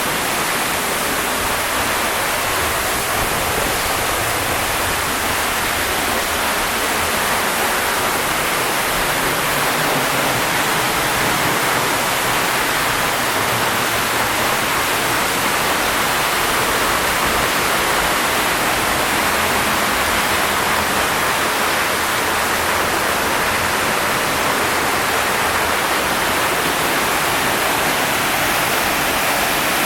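Steinsdalsfossen waterfall: falling water making a steady, loud rush of noise with no change through the whole stretch.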